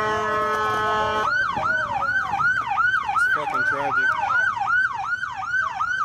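Police car electronic siren holding a steady tone, then switching about a second in to a fast yelp that sweeps up and down about three times a second.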